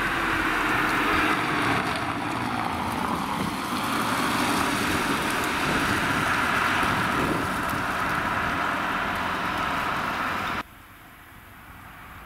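Emergency doctor's car, a VW Touran, driving past on tarmac: steady tyre and engine noise, with wind on the microphone. The sound drops abruptly about ten and a half seconds in to quieter street background.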